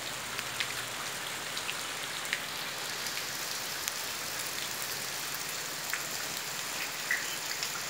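Steady rain falling on wet leaves and leaf litter, an even hiss with scattered sharper ticks of single drops.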